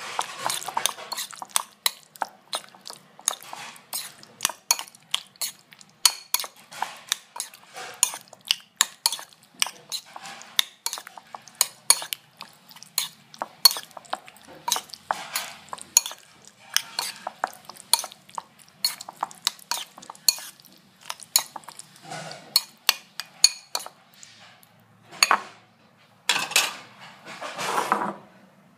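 A metal spoon stirring raw chicken pieces in marinade in a bowl, making repeated clinks and scrapes against the bowl, several a second. Near the end come a few longer, louder scrapes.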